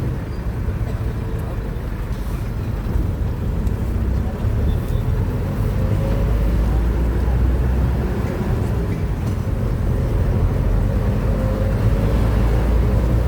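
Steady rumble of motor vehicles on a city street: engines and road noise, with faint drifting engine tones.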